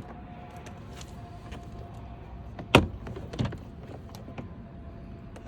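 Plastic retaining clips of a Honda Accord's interior door panel snapping loose as the panel is pulled off the door: one sharp, loud snap near the middle, a smaller one about half a second later, among light clicks.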